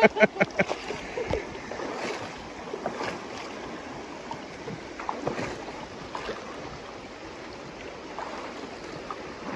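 Shallow mountain trout stream rushing over rocks, a steady wash of water with a few faint ticks and splashes.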